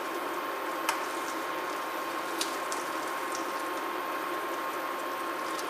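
Butter melting in an aluminium kadhai, giving a soft, steady sizzle as it bubbles, with a faint steady whine under it and a couple of light ticks of a steel slotted spoon against the pan.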